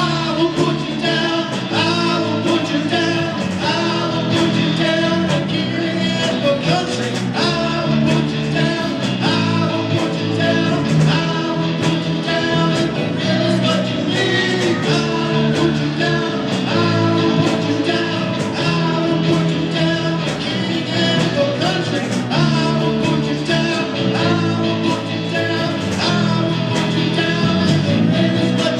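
A live band playing a rock-and-roll-style song with a singer, over a steady drum beat.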